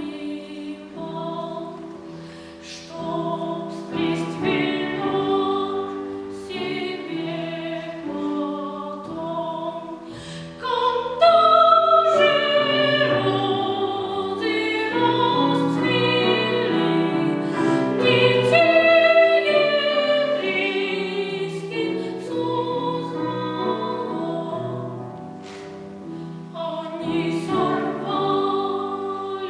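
A young singer's classical, opera-style voice holding long pitched notes over accompaniment, getting louder about a third of the way in and softening again near the end.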